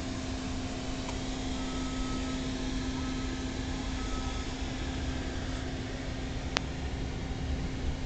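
12-volt automotive blower fan running steadily, driven directly by solar panels, a constant hum over a steady rush of air. A single sharp click about six and a half seconds in.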